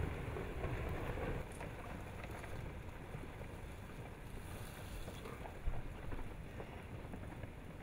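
Rockfall from a disintegrating volcanic lava dome: a steady low rumble and rush of tumbling rock and debris, with scattered clacks of falling stones. It eases slightly about a second and a half in, and there is a sharper knock about three-quarters through.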